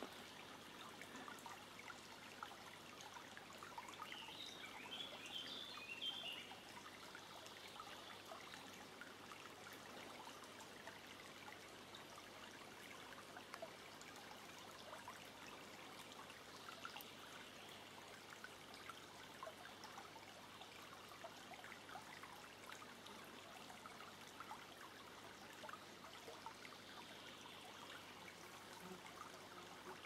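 Small forest brook trickling faintly over stones: a soft, steady water sound with light drips. A brief, brighter, higher sound rises over it about five seconds in.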